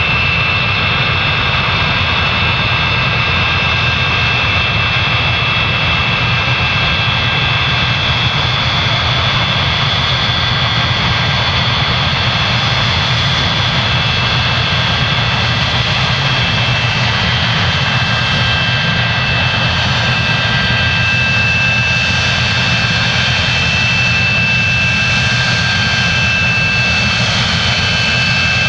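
Boeing 737-200's Pratt & Whitney JT8D turbofan engines running steadily, a loud even jet roar with several high whining tones held over it.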